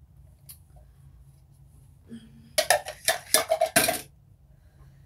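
Kitchen utensils clattering against a cooking pot and containers: a quick run of about six knocks and clicks lasting just over a second, starting about two and a half seconds in.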